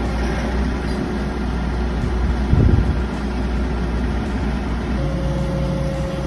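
John Deere 135G excavator's diesel engine running steadily as it swings a load on a chain, with a brief louder surge about two and a half seconds in. A steady whine sets in near the end.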